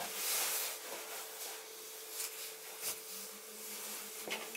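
Fabric rustling and rubbing as clothing and gear are handled, loudest at the start, with a few light knocks over a faint steady hum.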